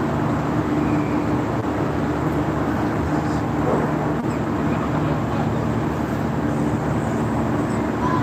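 A steady low drone, a constant mechanical hum under a rumbling noise, with no breaks or changes.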